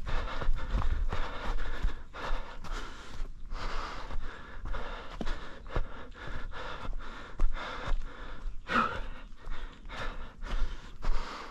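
A runner's heavy breathing, panting hard, over a steady rhythm of footfalls on the trail, with one louder voiced gasp about three-quarters of the way through.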